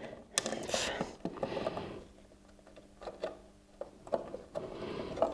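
A screw being turned by hand to fix a spool-holder bracket to the back of a 3D printer, with scattered small clicks and rustling of hands on the parts. The sounds go quiet for a couple of seconds in the middle.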